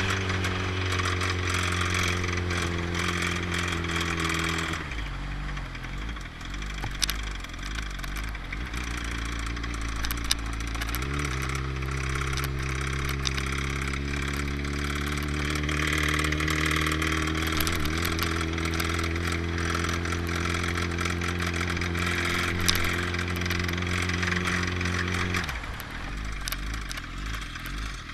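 Kawasaki ZX-10R inline-four engine running with a bad rod bearing. The revs are held up, fall back about five seconds in, are raised again a few seconds later and held, then drop back near the end, with a few sharp ticks along the way.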